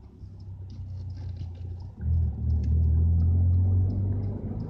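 Car rumble with low engine and road noise, growing sharply louder about two seconds in and then holding steady. Light clicks and rustling from the camera being handled come in the first couple of seconds.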